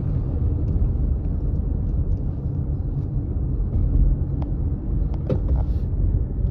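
Car driving along a highway, heard from inside the cabin: a steady low rumble of tyres and engine, with a few faint clicks.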